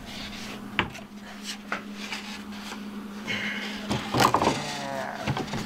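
A sheet of plywood being lifted and slid into place against a school bus ceiling: a knock, light clicks, then scraping and rubbing of the wood that is loudest about four seconds in. A steady low hum runs underneath.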